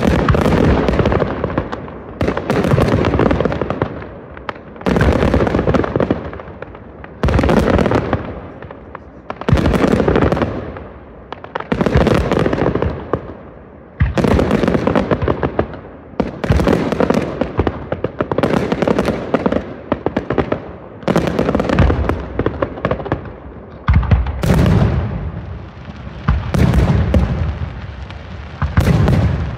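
Aerial firework shells bursting in a steady sequence, a loud bang about every two seconds, each one trailing off in a crackle.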